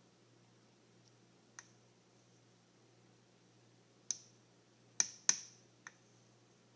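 A metal spoon clicking against the rim of a plastic cup: five sharp separate clicks, the two loudest close together about five seconds in.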